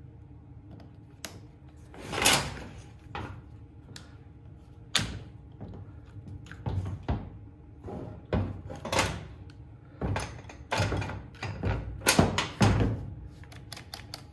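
Chainsaw parts being handled and fitted together during reassembly: irregular knocks, clicks and rubbing of the plastic housing against the engine and the bench. The loudest knocks come about two seconds in and again near the end.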